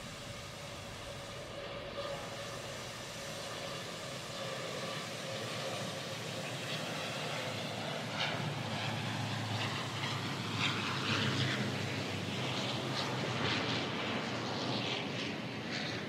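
Military aircraft flying past, its engine noise building gradually to a peak in the second half, then easing slightly near the end.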